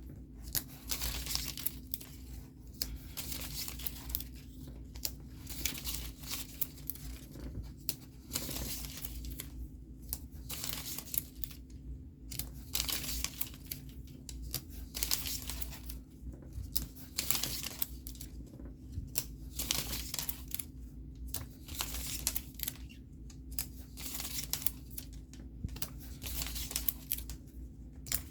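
Scratch-off stickers being peeled off their backing sheet and pressed onto paper pages, with paper and sticker sheets rustling in short irregular bursts over a steady low hum.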